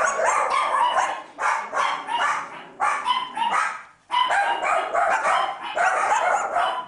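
Many puppies barking and yipping together in a dense, near-continuous chorus, broken once about four seconds in.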